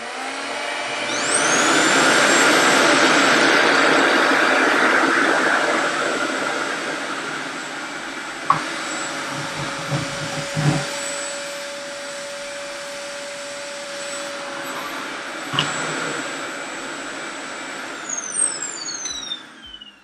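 RevAir reverse-air hair dryer's suction motor spinning up with a rising whine and running loudly and steadily as it pulls a section of hair into its wand, then winding down with a falling whine near the end. A few knocks about halfway through.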